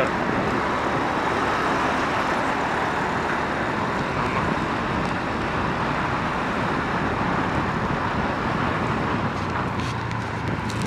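Steady road and traffic noise heard from a vehicle moving through dense city traffic: an even rush of engines and tyres with no distinct events.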